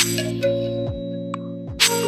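Background music: sustained synth-like chords over a steady beat, with a loud crash-like hit at the start and another near the end.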